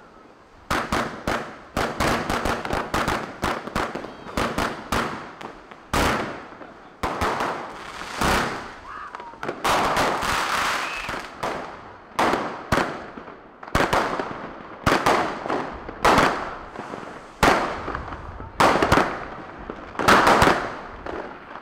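Fireworks and firecrackers going off: a rapid, irregular string of sharp bangs, with crackling between them.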